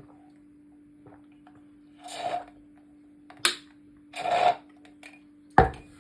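A few brief handling noises over a steady low hum: two short rustling sounds, a sharp click and a heavier knock near the end.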